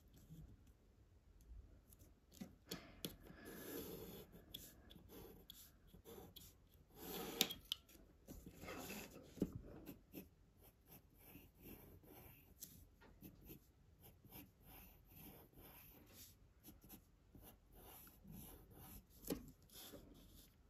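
Graphite pencil drawing lines on paper: faint, irregular scratching strokes with short pauses between them, a few slightly louder stretches partway through.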